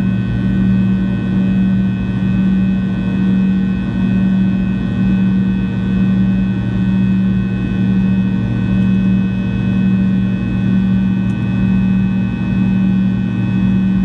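Fokker 70 cabin noise from a seat beside the rear-mounted Rolls-Royce Tay turbofans during the climb: a strong steady low drone with fainter whining tones above it, swelling and fading about once a second.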